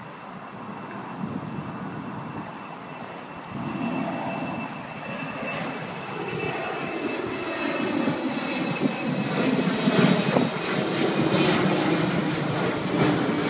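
Jet airliner climbing out just after takeoff, its engine noise growing steadily louder as it comes overhead: a broad rumble with a thin steady whine above it.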